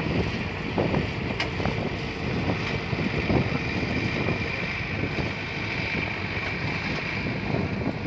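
Wind buffeting the microphone over the diesel engine of a Caterpillar crawler bulldozer running as it tracks away across loose dirt, with a steady high whine.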